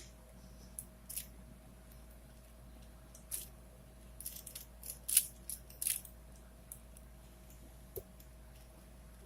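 A 4x4x4 Rubik's cube being twisted: scattered short plastic clicks of its layers turning, most of them in a cluster between about three and six seconds in.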